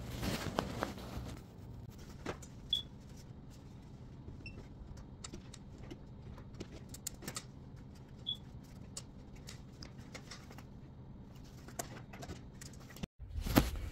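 Scattered faint clicks, taps and knocks of hands and tools working inside an air handler cabinet, with a few louder knocks about a second in, over a steady low hum.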